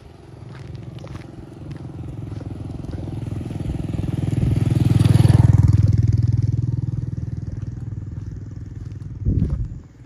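An engine vehicle, heard as a motorcycle, passing by: its running grows louder to a peak about halfway through, then fades away. A short low bump comes near the end.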